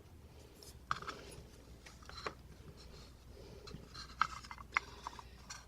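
Faint, scattered light clicks and small scrapes of tiny metal lock parts being handled on a bench, a few sharp ticks standing out.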